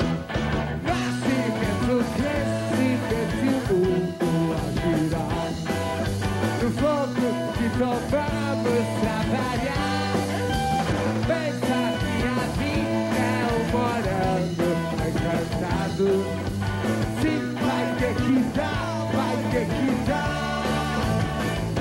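Live rock band playing: electric guitar, bass and drums, with a male singer singing into the microphone over them.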